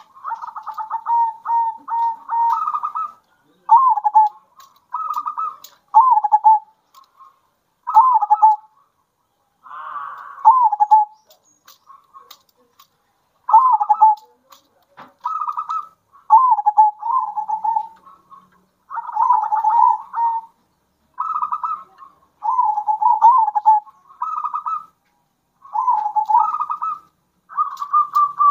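Caged local zebra doves (perkutut) singing their rolling cooing song, a string of short phrases every second or two, some with a fast rattling trill.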